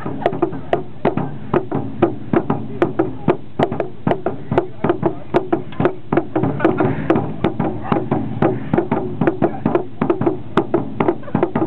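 Music: fast, steady drumming, about three to four hard strikes a second, over a steady low drone.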